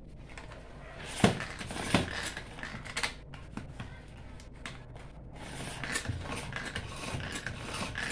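Tupperware Extra Chef hand-cranked mixer turning, its plastic gears and lid clicking and rattling irregularly as it mixes brownie batter.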